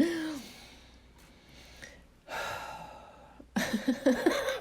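A woman's raspy, wheezing laughter: a short falling squeal at the start, a long gasping breath in the middle, then a burst of quick pulsed laughs near the end.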